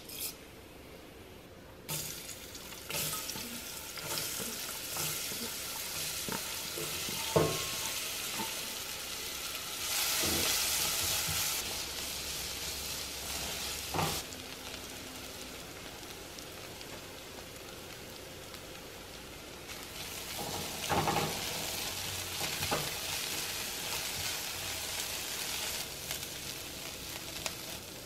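Whole cumin and mustard seeds, then chopped onion, frying in hot oil in a pot with a steady sizzle that grows louder about ten seconds in. A spatula stirs the onion and knocks against the pot a few times.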